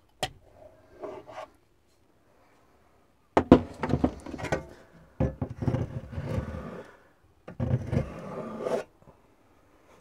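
A notched steel trowel scraping Gripfill adhesive across a plywood wall, in three long rough passes, after a single sharp click near the start.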